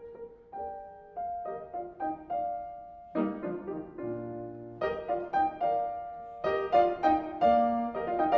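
Background piano music: a slow melody of single struck notes and chords, growing busier near the end.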